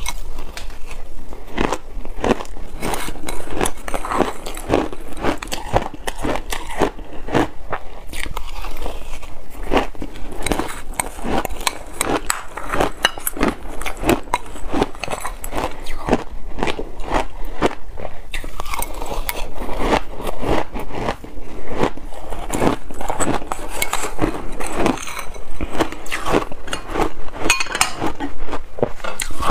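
Close-miked chewing of mouthfuls of shaved ice: dense, rapid crunching and crackling without a break.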